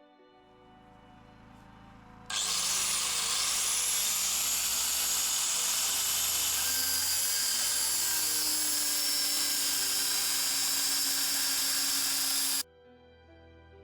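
Loud, even whirring of a small motor with a high thin whine, switching on abruptly about two seconds in and cutting off abruptly about ten seconds later, over faint background music.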